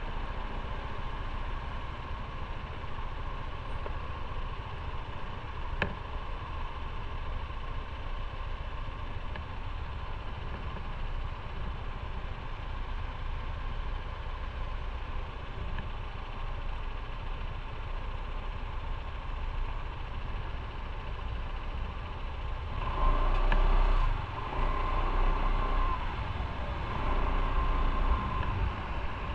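Motorcycle engine running steadily, then louder in surges near the end.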